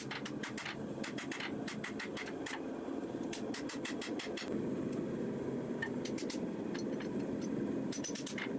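Steady mechanical hum of a running forge, with quick runs of faint light clicks over it.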